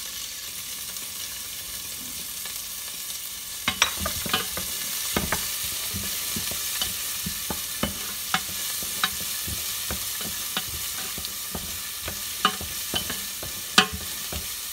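Chopped onion and garlic sizzling in olive oil in a stainless steel pot, stirred with a wooden spoon. From about four seconds in, irregular sharp taps come from the spoon knocking against the pot.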